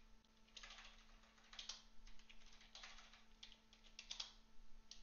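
Faint typing on a computer keyboard, in several short bursts of keystrokes with brief pauses between them.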